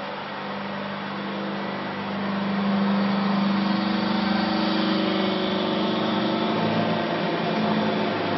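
NK30LT vertical hydraulic baler's electric motor and hydraulic pump running with a steady hum, getting louder about two and a half seconds in as the pressing plate comes down to compress a load of used clothes.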